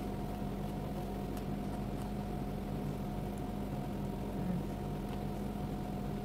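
A steady low machine hum, with a few faint crisp crunches of raw bell pepper being chewed.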